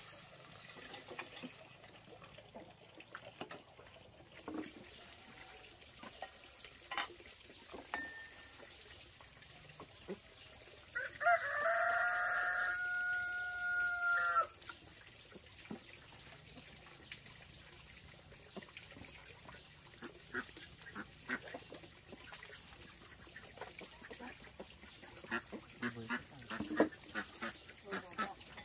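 A rooster crows once near the middle, one loud drawn-out call of about three and a half seconds. Scattered light clicks and knocks sound around it.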